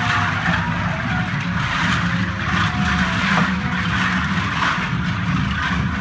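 Dense, continuous improvised noise texture from a live sound-art ensemble: a rough low rumble under a thick hiss, with a faint steady tone and short wavering tones drifting above.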